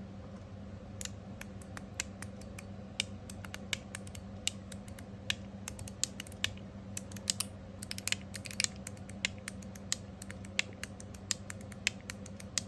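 Copper mechanical fidget slider, fitted with brass cups on 2.7 mm springs, being slid back and forth: a quick, irregular run of sharp metallic clicks as its spring-loaded detents snap, starting about a second in.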